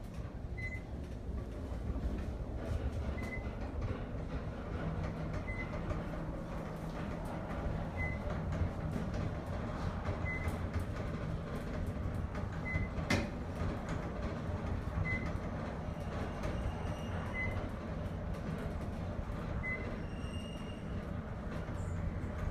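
Otis inclined elevator car travelling down its sloped track, with a steady low running rumble. A short high beep from the floor-passing chime sounds about every two and a half seconds, nine times. There is one sharp click partway through and a brief higher ringing tone near the end.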